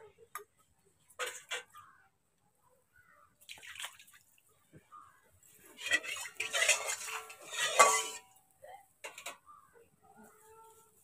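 Metal cooking pots and utensils clanking and clattering as they are handled and set down. There are a few separate clinks first, then a denser run of ringing metal clatter from about six to eight seconds in.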